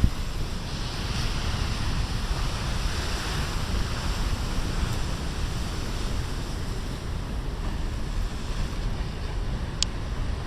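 Big storm surf crashing and washing against the shore in a steady low rumble, with wind buffeting the microphone.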